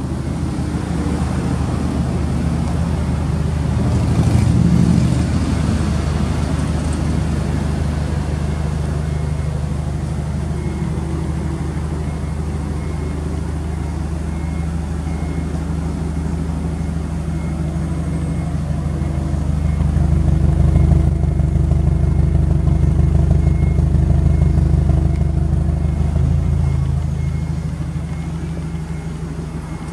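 Subaru Impreza WRX STI (GDB) turbocharged EJ20 flat-four idling through an aftermarket muffler: a steady, low exhaust note. It swells louder for a few seconds about two-thirds of the way in, then settles.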